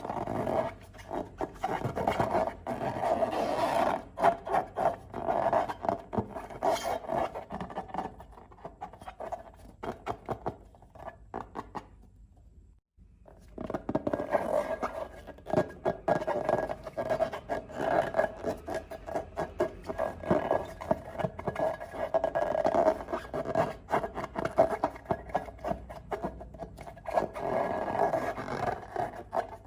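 Slime being squished and stirred, a dense run of sticky crackling clicks and squelches, which stops briefly about 13 seconds in and then starts again.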